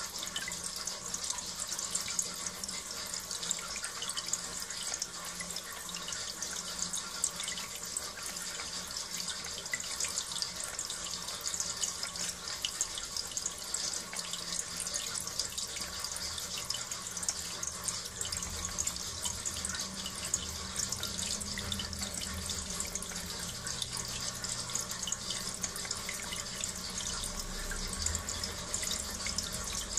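Flush water running steadily from a drain hose down into a bowl and splashing into the pooled water: the discharge of sludge-laden water being rinsed out of a heating circuit.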